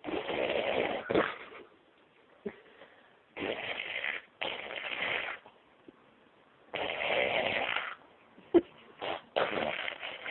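A baby blowing raspberries, buzzing its lips in about five separate spluttering bursts of around a second each, with a short click near the end.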